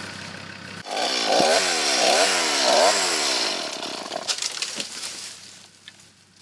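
Chainsaw cutting a fallen tree blocking the lane, revving up and down about three times and then dropping away. A vehicle engine idles in the first second.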